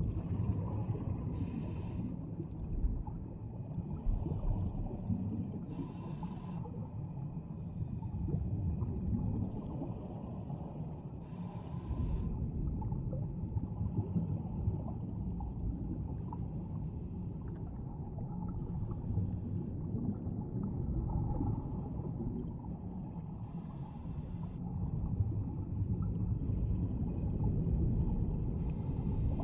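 Muffled underwater rumble of a scuba diver breathing slowly through a regulator, with a short hiss of breath about every five seconds.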